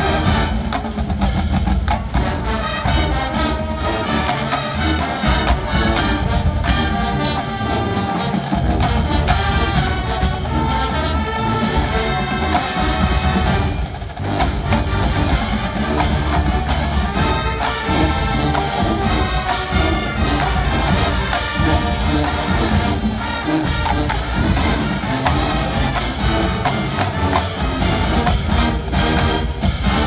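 College marching band playing, its brass section carrying the tune over a drum line's percussion.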